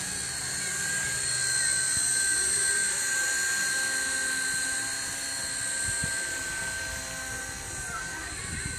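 WLtoys V922 micro RC helicopter's electric motor and rotors whining in flight. The steady high whine swells over the first two seconds as the helicopter passes close, then slowly fades as it climbs away.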